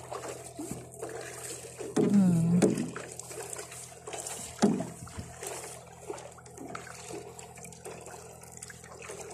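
Water lapping and trickling around a clear plastic kayak. There is a short vocal sound about two seconds in and a single knock about halfway through.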